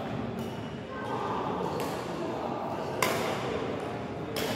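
Badminton rackets striking a shuttlecock in a rally: sharp smacks one to one and a half seconds apart, the loudest about three seconds in, ringing in a large sports hall.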